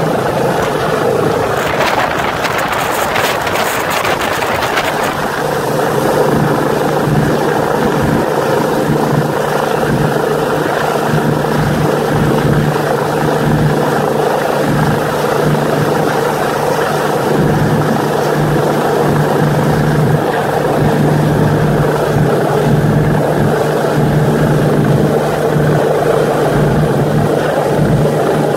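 Rescue helicopter hovering close overhead for a winch hoist, its rotor and turbine running loud and steady. A steady hum in the rotor noise becomes plain about five seconds in.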